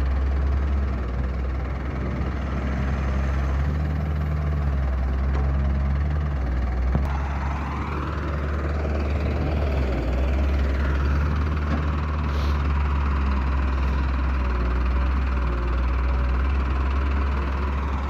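Heavy diesel engine running steadily with a deep hum. About seven seconds in, a whine rises in pitch, then falls away around ten seconds.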